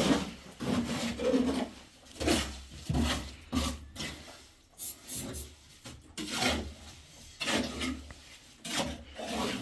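Repeated rough scraping or rubbing strokes at an uneven pace, roughly one or two a second.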